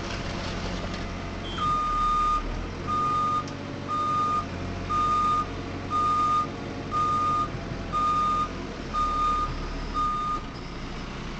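A vehicle's reversing alarm beeping nine times, about once a second, over a diesel engine running.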